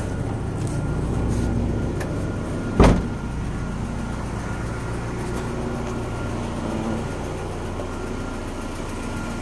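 Honda H22 four-cylinder engine idling steadily in neutral. One loud thump just under three seconds in.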